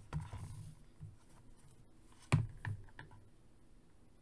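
Hard plastic toy parts handled and knocked together as a mech suit's foot piece is tried against its leg: a few light clicks, with one sharp click a little past halfway.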